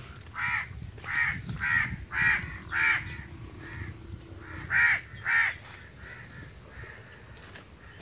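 A bird calling repeatedly: a run of about eight short loud calls over the first five seconds or so, with a brief gap around four seconds in.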